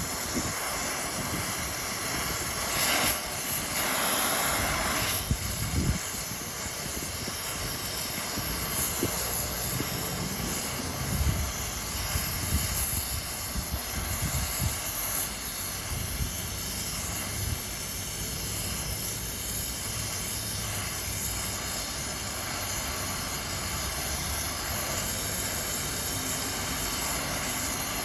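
Steady hiss of arc welding on cast iron, building up its chipped edges, with a few short low knocks along the way.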